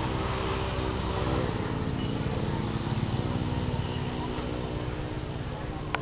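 A motor vehicle's engine running steadily, its pitch shifting slightly a couple of times, over general street noise.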